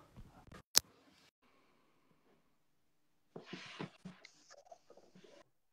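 Handling noise from a computer and webcam: one sharp click about a second in, then quiet, then rustling with a few light knocks over the last two seconds.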